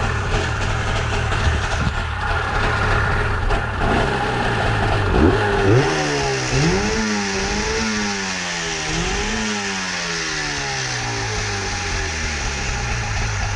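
Two-stroke Rabbit engine with a 72 mm bore running just after starting, revved up and down several times from about five seconds in, then settling back to a steady run near the end.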